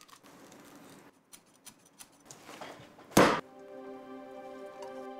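A knife slicing and scraping along a mud carp on a wooden chopping board. About three seconds in there is a single loud thud, and soft background music with long held notes follows.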